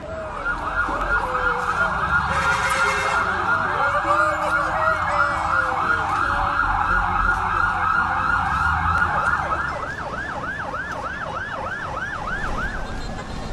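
Emergency vehicle sirens in a fast yelp, the pitch sweeping up and down about three times a second, several overlapping at first and one heard alone from about ten seconds in, over a low rumble of traffic.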